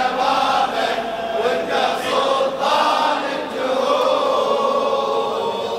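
Crowd of male mourners chanting a Shia latmiya together, with the slaps of hands beating chests in time with the chant.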